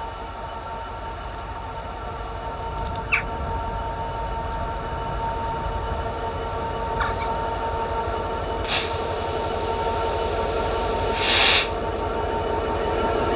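Freight train approaching, its rumble and a steady whine growing louder, with two short hisses late on.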